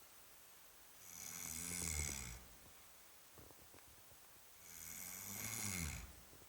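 A sleeping person snoring heavily: two long snores, each about a second and a half, some three and a half seconds apart, with a low rattling tone and a breathy hiss.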